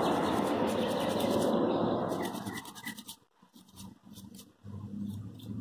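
Toothbrush bristles scrubbing a power window switch circuit board wet with rubbing alcohol, a steady scrubbing that stops about two and a half seconds in. After that, only a few faint clicks.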